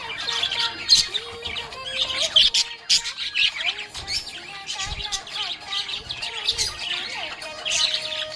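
Budgerigar chirping and warbling in busy, continuous chatter, over a background melody of held notes.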